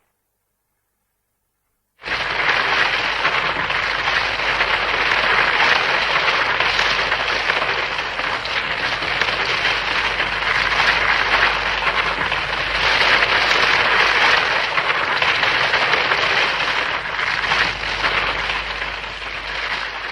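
Hedorah monster sound effect: a long, dense crackling hiss that starts abruptly after a couple of seconds of silence, holds steady, and begins to fade near the end.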